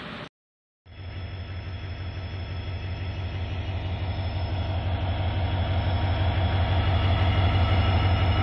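Diesel locomotive engine idling: a steady low throb that grows slowly louder, after a brief dropout less than a second in.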